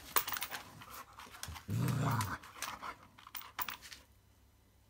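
Dog panting and scuffling as it attacks a reacher-grabber stick, with several sharp clicks and knocks from the grabber's jaws and shaft on a tiled floor. There is a brief low sound about two seconds in, and the noise dies away near the end.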